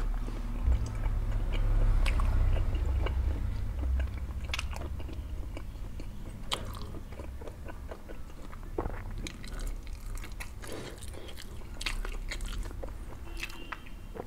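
Close-up chewing of a steamed chicken momo, with many wet mouth smacks and clicks; loudest in the first few seconds.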